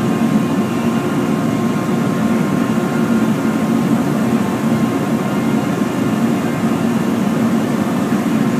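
Steady, loud roar of a glassworks floor: the continuous din of furnaces and blowers, with a faint steady whine on top.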